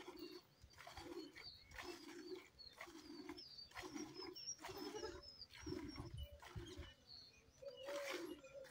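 Cow being milked by hand: milk squirting into a steel bucket in a steady rhythm of about two squirts a second. Birds chirp faintly above it.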